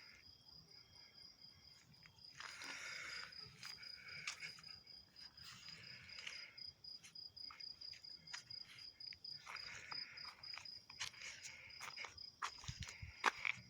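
A cricket trilling steadily, a high rapid pulsing tone. Several short bursts of scratchy noise and sharp clicks come at intervals over it.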